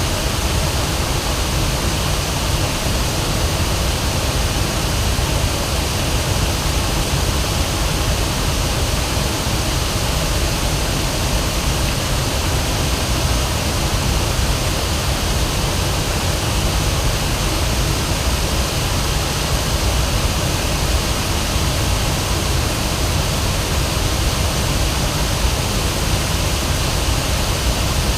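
River waterfall rushing steadily: an even, unbroken noise of falling water, heaviest in its low rumble.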